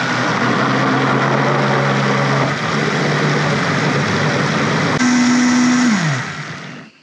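Countertop blender running steadily, churning a thick pumpkin pie custard of baked squash, eggs, evaporated milk and sugar. About five seconds in its tone steps higher; then it is switched off and the motor winds down with a falling pitch near the end.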